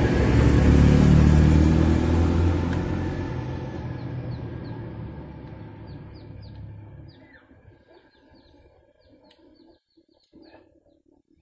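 A motor vehicle passing close by, its low engine rumble fading away over about seven seconds. Small birds chirp repeatedly as it dies away.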